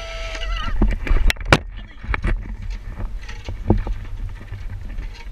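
A man's held, exhilarated whoop that wavers and breaks off about half a second in, then wind rumbling on the microphone as he rides the rope-swing zip line, with a scatter of sharp knocks and clacks, the loudest two about a second and a half in.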